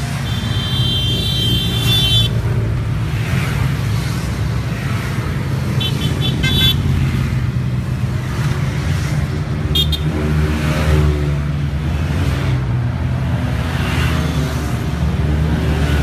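A column of maxi-scooters riding past, their engines running steadily. Scooter horns beep: a long beep at the start, short beeps about six seconds in and again near ten seconds.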